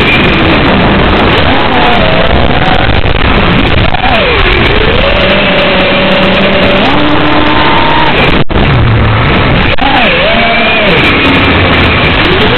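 FPV quadcopter's brushless motors whining under a loud hiss, the pitch swooping up and down and holding steady as the throttle changes.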